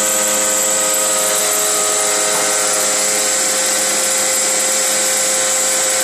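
Terco CNC 45 milling machine cutting aluminium: the spindle and end mill make a steady, loud whine over a constant hiss, with no change in load.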